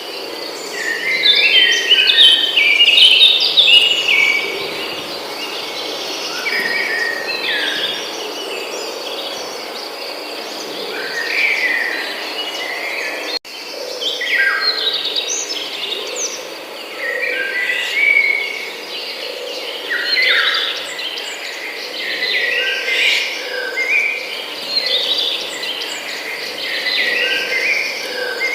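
Forest birds singing and chirping, many short overlapping phrases, over a steady high-pitched insect drone. The sound drops out for a moment about halfway through.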